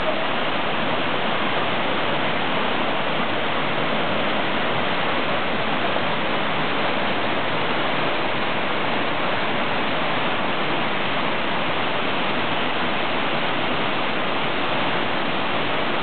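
Rushing white water of a mountain stream tumbling over rocky cascades and falls: a steady, unbroken noise of falling water.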